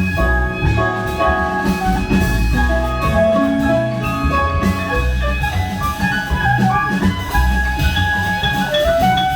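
A live jazz band playing: melody notes over a bass line and drum kit.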